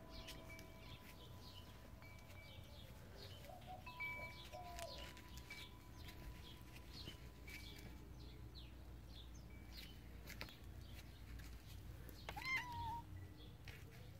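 A cat meows once near the end, a call that rises and then holds. Faint bird chirps and the lingering tones of a wind chime sound underneath.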